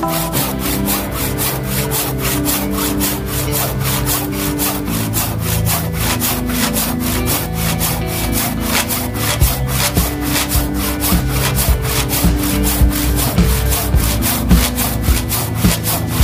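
Tjap Mata handsaw cutting through wood in rapid, even strokes, several a second, over background music.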